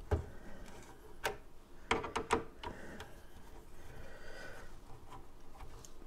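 Light clicks and taps of a screwdriver against the plastic fan housing and metal case of a desktop computer as the fans are being removed, about half a dozen sharp clicks with several close together about two seconds in.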